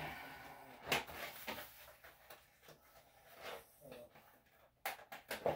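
Plastic cone collar being handled and fitted around a small dog's neck: faint rustling with a few sharp clicks about a second in and a quick run of clicks near the end.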